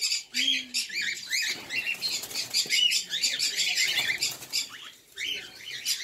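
Many small caged birds chirping and twittering at once in a dense, continuous chatter that thins out briefly about five seconds in.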